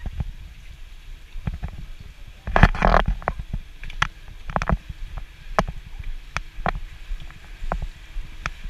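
Underwater pool sound heard through a submerged camera: a low rumble of water with scattered sharp clicks and ticks, and a louder rush of water about two and a half seconds in.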